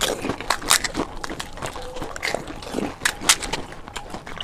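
Crisp fried panipuri (fuchka) shells being cracked open and bitten, with irregular crunching and wet chewing from two eaters.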